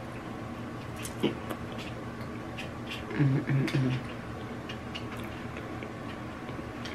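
A person eating fried shrimp: wet chewing with scattered lip smacks and clicks, and about three seconds in a short low hum in three pulses, like a pleased "mm-mm-mm".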